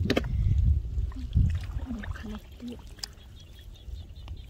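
Bare feet and hands squelching and splashing in shallow paddy water and mud, with a low rumble and a few sharp clicks in the first second or so. Later, a few short low-pitched calls come through the quieter splashing.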